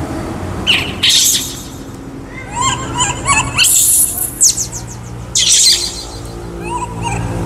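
Baby macaque squealing and chirping in several short high-pitched bouts, the loudest a shrill squeal about four seconds in.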